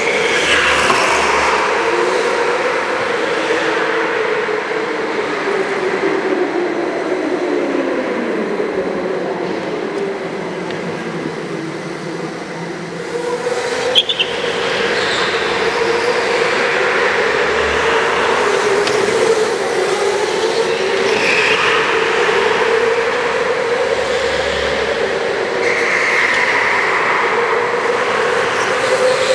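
Several go-kart engines running as the karts lap an indoor track, the overlapping engine note sinking in pitch around the middle and climbing again. The sound carries through a large hall. A short sharp click comes about halfway through.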